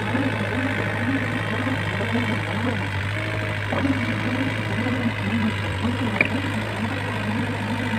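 Diesel engine of a Komatsu PC50UU mini excavator running steadily as the machine tracks slowly through slippery mud.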